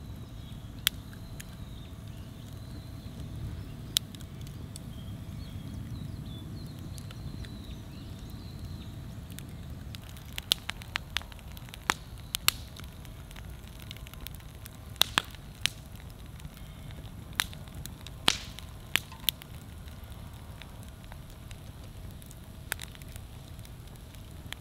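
Wood campfire burning, with a steady low rush of flame and sharp crackles and pops at irregular intervals, most of them in the second half.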